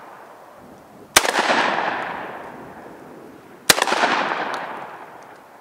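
Two shots from a Molot VEPR-12 semi-automatic 12-gauge shotgun firing high-brass birdshot, about two and a half seconds apart. Each shot is followed by a long echo that fades over about two seconds.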